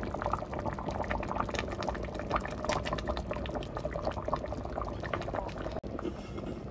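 Thick balbacua stew simmering in a wok, its bubbles popping in many small, irregular clicks, while canned beans are tipped from the can into the sauce.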